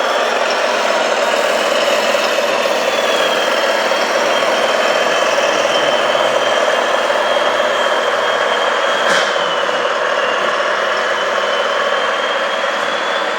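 Radio-controlled model construction machines running: a steady engine-like drone with a high whine that wavers slightly in pitch, with almost no deep bass. A single sharp click comes about nine seconds in.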